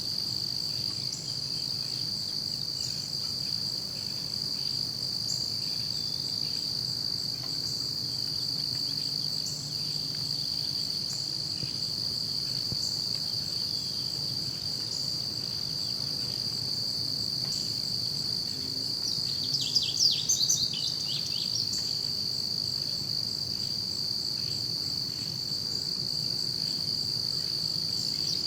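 Forest ambience: insects keep up a steady high-pitched drone, with faint scattered bird chirps. About twenty seconds in, a bird gives a short burst of rapid, falling song notes, the loudest sound here.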